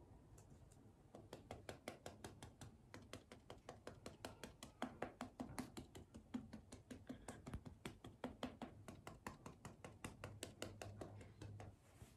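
Quick, light, faint taps of fingertips patting makeup onto the face, about five or six a second, stopping shortly before the end.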